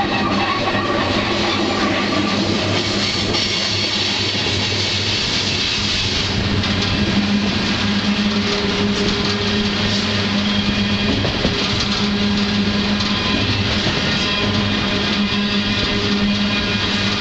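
Steady rumble and rattle of a moving freight train heard from aboard one of its cars, with a steady low hum underneath.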